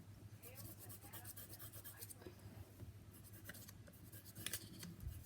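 Faint scratchy strokes of coloring on paper, in short uneven bursts, over a low steady hum.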